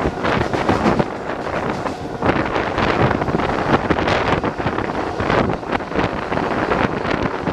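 Wind buffeting the microphone at the open door of a Siemens EMU local train running at speed, mixed with the train's steady running noise on the track.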